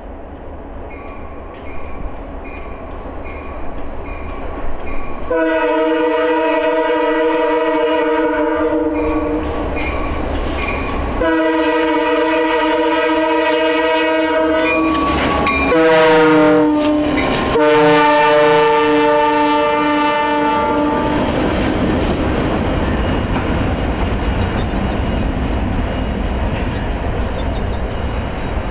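Diesel freight locomotive's air horn sounding the grade-crossing signal: two long blasts, a short one and a final long one, its pitch dropping as the locomotive passes close by. A bell dings steadily before the horn, and afterwards the diesel engine and the wheels rumble on, clicking over the rail joints.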